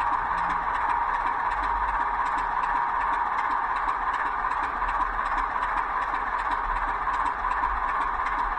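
Model Class 25 diesel locomotive's DCC sound decoder playing a recording of the real locomotive's Sulzer engine idling, heard through the model's small speaker: a steady, unchanging engine sound while the locomotive stands still.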